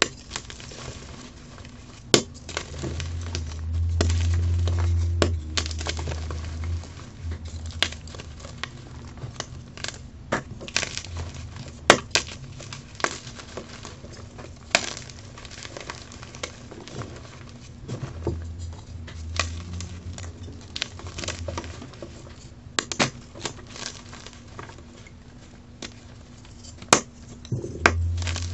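Blocks of dyed gym chalk crushed and crumbled by hand: dry, irregular crunching and crackling as the chalk breaks apart, with a few sharp snaps and stretches of low rumble.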